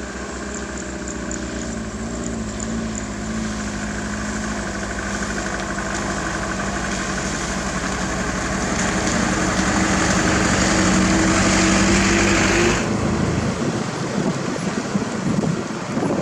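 Diesel engine running steadily, its pitch and loudness climbing gradually, then dropping back suddenly about thirteen seconds in to a rougher, uneven running.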